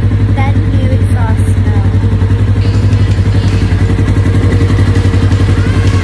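Polaris RS1's engine running steadily through a new Trinity aftermarket exhaust: loud, with a deep, fast and even pulsing.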